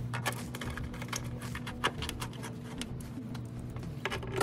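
Small metal hardware clicking and rattling in the fingers as a screw and washer are handled and fitted at a steel hinge bracket: irregular light clicks, with a quick cluster near the end.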